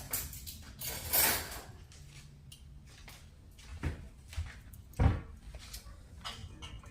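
Handling noises: plastic parts and packaging being moved and set down, with scattered knocks, a rustle about a second in and a sharp knock about five seconds in.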